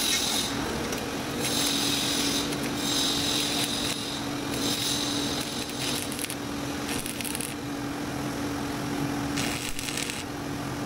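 Stick (arc) welding on a steel frame: the arc crackles and sizzles in several short runs of a second or so each, over a steady low hum.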